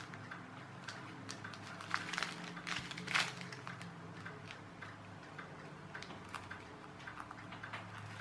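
Scattered light clicks and soft rustles of a small postal package being handled, over a faint steady low hum.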